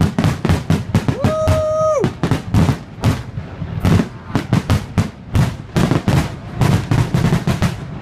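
Aerial fireworks shells bursting in a rapid barrage, about four or five bangs a second throughout. A single held tone sounds briefly over the bangs about a second in.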